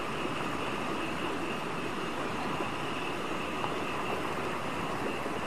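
Steady night ambience: a constant high chirring, typical of a night insect chorus, over an even low rush.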